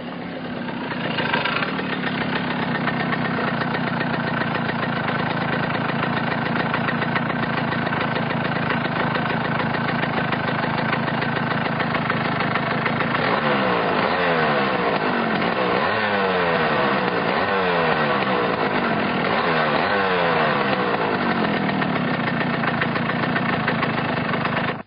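Yamaha motorcycle engine idling steadily, then revved in a series of quick throttle blips, each rising in pitch and falling back, before settling to idle again. It cuts off suddenly at the end.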